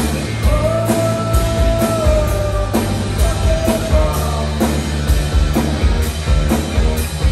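Live rock band playing: two electric guitars over a drum kit with a steady beat. A long held note rides over the band from about half a second in to nearly three seconds, and comes back briefly around four seconds.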